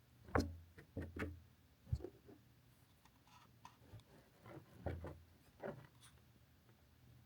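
A few soft knocks and rustles, close and faint: about six short taps spread irregularly over several seconds, the sharpest near the start.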